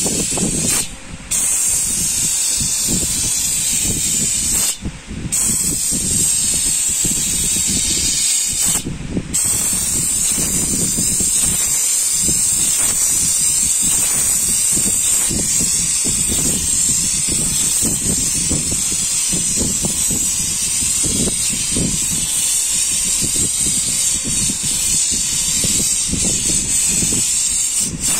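Steam cleaner wand hissing steadily as it jets steam onto a fabric car seat cover, with a low rumble underneath. The hiss cuts out briefly three times in the first ten seconds, then runs on without a break.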